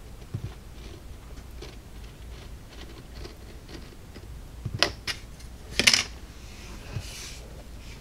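Small laser-cut wood parts and a razor saw handled on a workbench: faint scattered ticks, then two loud clusters of sharp clicks and clatter about five and six seconds in, followed by a soft, brief scrape.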